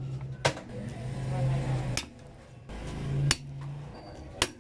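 Four sharp knocks of a kitchen knife striking a cutting board, a little over a second apart, over a low hum.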